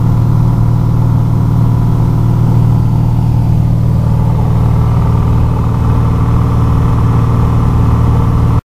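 Single-engine propeller plane's engine and propeller running steadily at cruise, heard loud from inside the cabin. The sound cuts off abruptly near the end.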